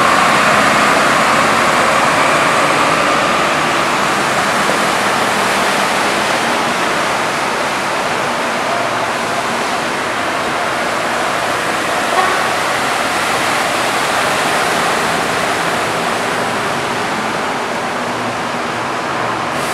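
Steady rushing of vehicles wading through a flooded street, loudest at the start as a bus ploughs past throwing up spray. One short click about twelve seconds in.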